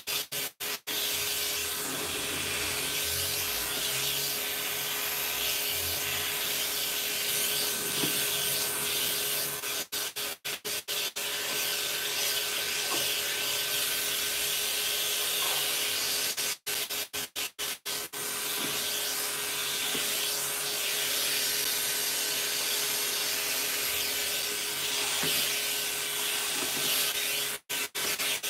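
Electric pet clippers running steadily, with a steady motor hum, as they cut through a Persian cat's long coat. The sound drops out for split seconds a few times, about ten seconds in, again around seventeen seconds and near the end.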